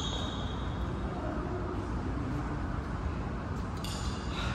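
Badminton rally: the high, ringing ping of racket strings striking the shuttlecock. One ping fades out over the first second, and softer hits come near the end, over a steady low background rumble.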